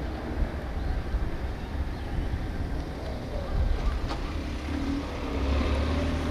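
Wind buffeting the microphone as a low rumble, over a faint steady drone of distant engines or machinery.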